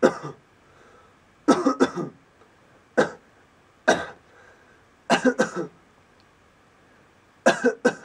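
A man coughing deliberately and loudly into a close condenser microphone, about six times in short bursts. Several of the bursts are quick double or triple coughs, with brief quiet between them.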